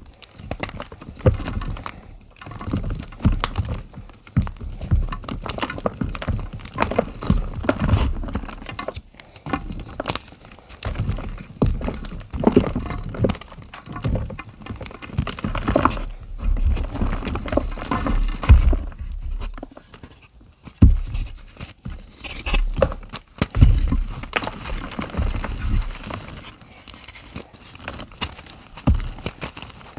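Gym chalk being crushed and crumbled close to the microphone: an irregular run of dry crunches and crackles, with a few brief pauses.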